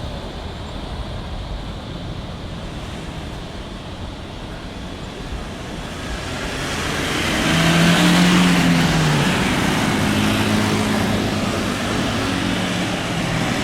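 A vehicle passing close by over a steady background rumble of traffic: it swells from about six seconds in, is loudest about two seconds later with an engine note that drops slightly in pitch as it goes past, and stays fairly loud after.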